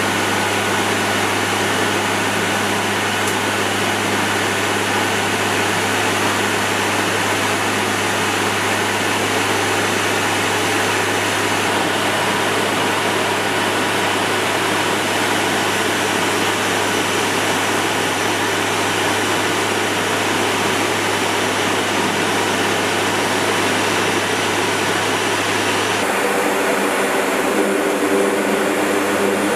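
Steady drone of a transport aircraft's turboprop engines and propellers in flight, heard inside the cabin, with a constant low hum. Near the end the sound shifts to a duller cabin drone with a few higher hums.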